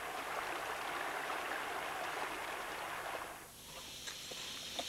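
River water sloshing and splashing steadily as a young elephant wades and swims through it. The water sound drops away about three and a half seconds in, leaving a fainter hiss with a few small clicks.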